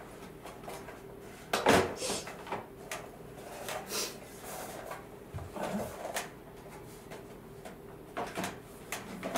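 Parts and packaging of a Dyson Pure Cool fan being handled and fitted together: scattered knocks, clicks and rustles, the loudest a little under two seconds in.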